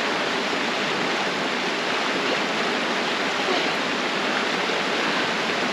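Fast-flowing mountain river rushing over rapids: a steady, even noise of running water.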